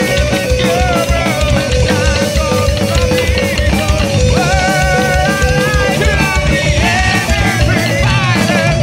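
Heavy metal band playing an instrumental passage: fast, driving kick drum and drums under a sustained lead melody line that bends and wavers in pitch.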